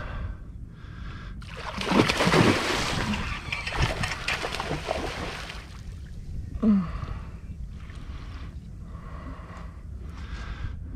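A hooked tarpon thrashing and splashing at the surface for about four seconds, starting between one and two seconds in. Heavy, regular breathing of the angler fighting the fish runs under it.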